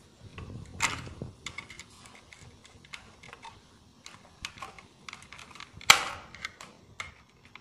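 Small clicks and taps from a screwdriver working the screw terminals of a modular electrical switch and from handling the plastic switchboard plate, as a wire is fastened into the terminal. Two sharper clicks stand out, about a second in and near six seconds in.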